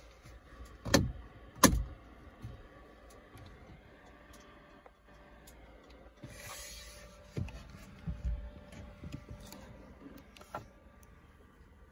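Knocks and bumps from someone moving about inside a small camper van: two sharp knocks about a second in, a brief hiss around six seconds, then several duller thumps and taps.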